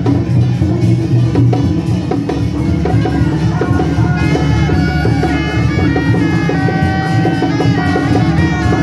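Loud traditional Chinese procession music: a suona (double-reed horn) melody over steady drum and cymbal beats. The horn line comes forward about four seconds in.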